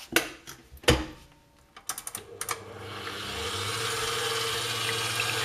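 Stand mixer being set up and started: a few metal clunks and clicks, the loudest about a second in, then the motor starts about two and a half seconds in and builds up to a steady whirring run with the balloon whisk beating egg yolks and hot syrup at third speed.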